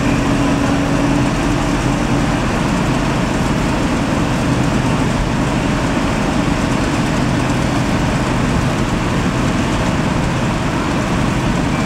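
Fire apparatus diesel engine running steadily at a fire scene, a constant low drone, with a humming tone that fades out in the first couple of seconds.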